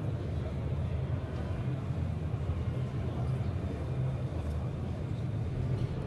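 Exhibition-hall ambience: a steady low rumble with indistinct crowd chatter.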